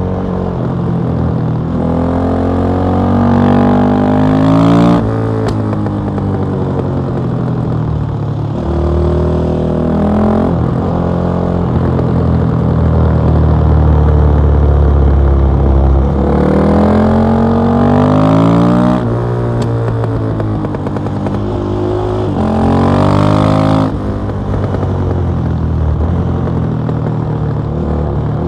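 KTM 660 SMC's single-cylinder four-stroke engine through an Akrapovic exhaust, heard on board while riding. The revs rise repeatedly and drop sharply at each gear change or throttle-off, with a steadier stretch at constant revs near the middle.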